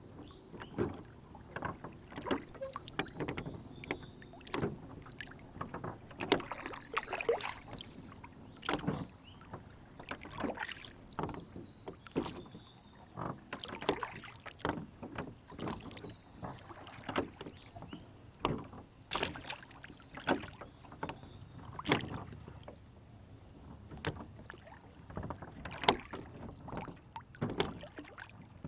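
Lake water splashing and lapping against a small rowboat in many short, irregular slaps.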